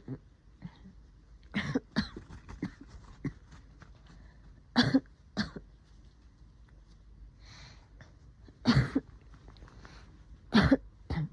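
A woman's wet, phlegmy coughs in several short fits, the loudest about five, nine and eleven seconds in: a chesty COVID cough thick with phlegm.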